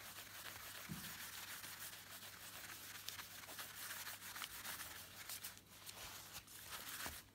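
Faint, uneven rustling and rubbing of a wad of tissue paper buffed over a beeswax encaustic painting on card, polishing the wax to a shine.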